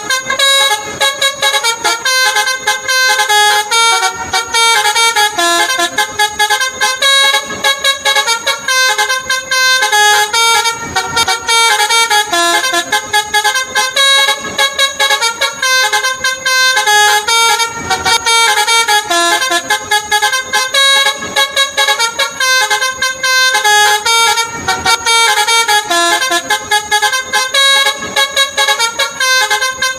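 Telolet 'basuri' melody horn on a Honda Scoopy scooter playing a fast tune: a string of horn notes stepping up and down several times a second, with short breaks between phrases.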